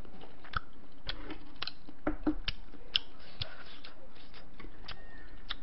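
Chopsticks clicking and tapping against dishes and a plastic takeout food tray: about a dozen light, irregular clicks.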